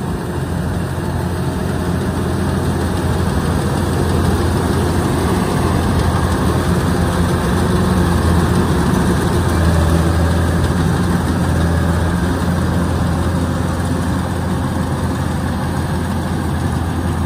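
Kubota DC-105X combine harvester's diesel engine running steadily under load while it cuts rice, with the clatter of its machinery; it grows louder as the machine comes closest, about halfway through.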